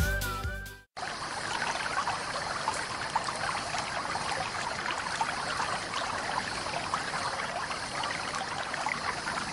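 The tail of a music jingle cuts off about a second in. Then a small stream babbles and trickles steadily.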